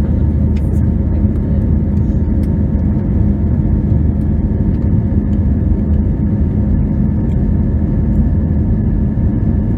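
Steady low drone of jet engines and rushing air, heard inside an airliner's cabin in flight, with a faint steady whine above it.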